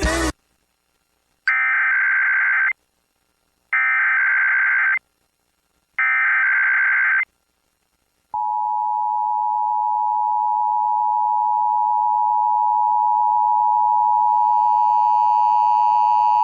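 Emergency Alert System test tones: three short bursts of SAME digital header data, evenly spaced about a second apart. Then, about halfway through, the steady two-tone EAS attention signal starts and holds, growing slightly louder and rougher near the end.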